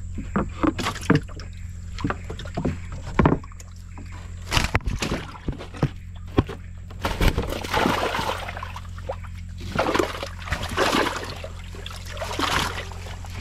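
Wooden deck planks of a canoe knocking as they are handled and lifted, with fish splashing in the water of the hold beneath in several rushing bursts during the second half.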